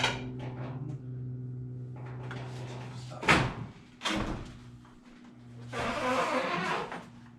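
Truck door handling: a click at the start, then a loud thump a little past three seconds in and a second knock just under a second later, with a rustling about six seconds in, over a steady background hum.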